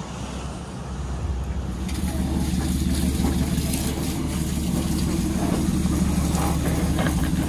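Boat engine running steadily, a low, even hum; a steady hiss joins about two seconds in.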